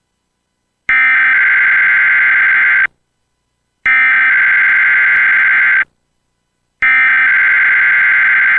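Emergency Alert System SAME header for a weekly test: three identical bursts of high, buzzing digital data tone, each about two seconds long and about a second apart.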